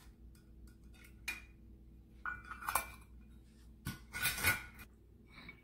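Metal measuring cup clinking and knocking against the rim of a mixing bowl as flour is tipped out of it: a few separate clinks with short ringing, the loudest cluster around four seconds in.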